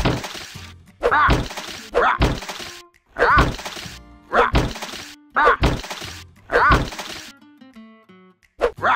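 A mallet smashing vegetables on a wooden cutting board: about eight heavy whacks roughly a second apart, with a gap just before the last. Each whack comes with a short grunt, over background music.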